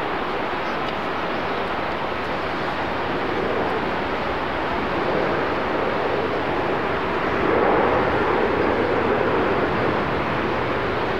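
Jet engines of a Boeing 787-8 airliner heard from afar as it touches down and rolls out along the runway: a steady noise that swells about seven to eight seconds in.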